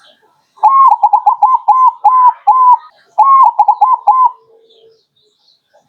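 Zebra dove (perkutut) singing: a rapid run of short, hooked cooing notes starting about half a second in, a brief break near three seconds, then a second run that ends a little after four seconds.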